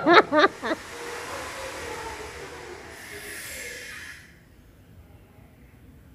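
A few words of speech, then a steady hiss that cuts off suddenly about four seconds in, leaving near quiet.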